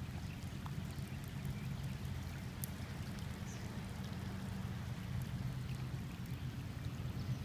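Steady outdoor background noise: a low rumble with a few faint scattered ticks.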